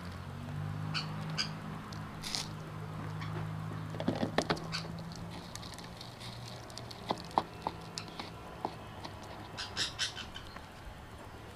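Dry chicken-feed pellets spooned into a plastic funnel and rattling down into a plastic water bottle: scattered clusters of small dry clicks and patters. A low steady hum runs under the first half.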